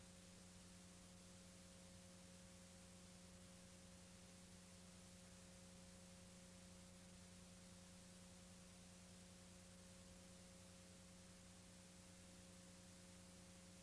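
Near silence: a faint steady electrical hum over light hiss.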